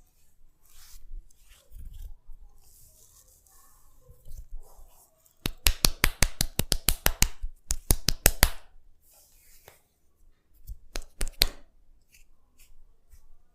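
A quick run of sharp snapping clicks made by hands during a head massage, about ten a second for some three seconds starting about five seconds in. A few more snaps come near the end, with soft rustling of hands on hair in between.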